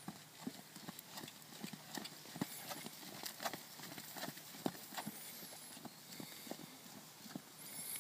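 Horse trotting on a sand arena: soft, regular hoofbeats thudding into the sand, about two to three a second.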